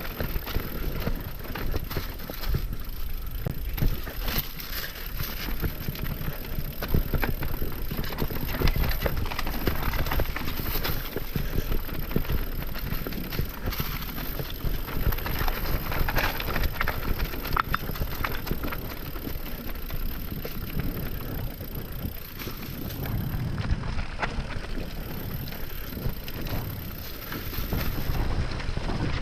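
Mountain bike descending a rough downhill trail on WTB Vigilante and Trail Boss tyres at about 25 psi: tyre noise on dirt with a continuous, irregular clatter and knocking of the bike over bumps.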